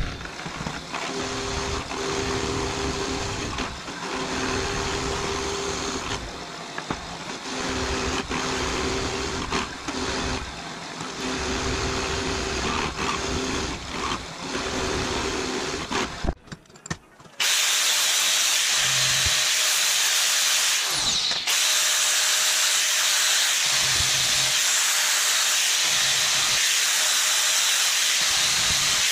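Milling machine with an end mill cutting steel: an uneven machining noise with a faint steady hum. About sixteen seconds in it breaks off, and after a short dip a loud, steady high hiss takes over.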